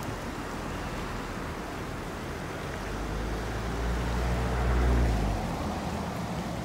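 River water rushing steadily through the arches under a brick mill building. About halfway through, a low engine rumble swells, then drops away, as a vehicle passes close by.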